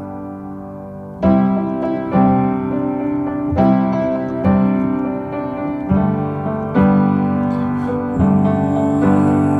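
Instrumental passage of a gentle pop song: piano chords struck about once a second, each ringing and fading before the next.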